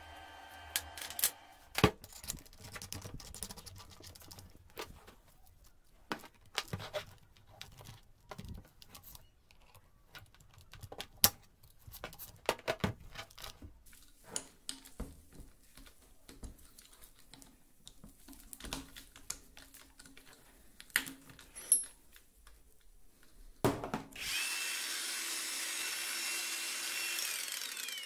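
A wrench and small metal parts being handled against a drill chuck, giving scattered sharp metal clicks and clinks. About a second before the end a power tool starts and runs steadily at speed for about four seconds.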